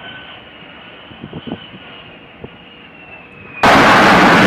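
F-35B jet engine during takeoff, heard from a distance as a muffled rush with a steady high whine that sags slightly in pitch, and a few brief low bumps. About three and a half seconds in it cuts suddenly to a much louder roar of the jet passing close.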